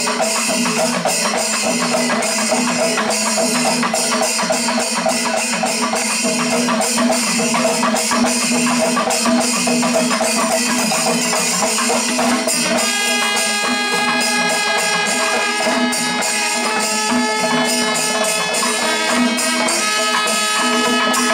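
Panchavadyam temple ensemble playing: drums and ilathalam cymbals strike in a fast, steady rhythm. A little past halfway through, kombu horns join with long held notes over the percussion.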